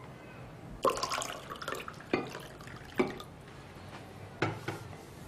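Water poured from a clear plastic pitcher into a drinking glass, in about five separate glugs and splashes.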